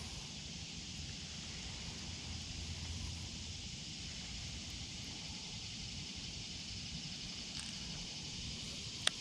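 Outdoor ambience: a steady high hiss over a low rumble, with one sharp click just before the end.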